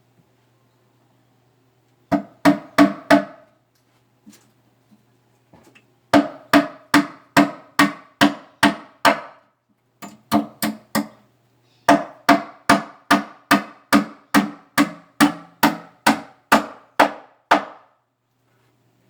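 Hammer driving nails into wooden boards: a few quick blows, then long runs of steady, ringing strikes at about four a second, broken by short pauses.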